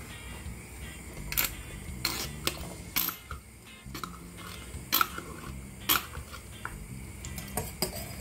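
Sharp, irregular clinks and taps of a metal utensil against a tin can and a ceramic bowl as canned sweetcorn is scooped into the bowl, about eight clicks in all.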